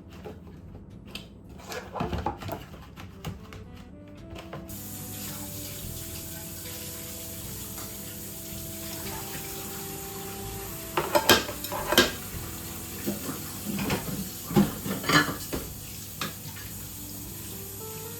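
Kitchen tap running into a sink, switched on about five seconds in, with dishes and cutlery clattering several times in the middle. Soft background music plays underneath.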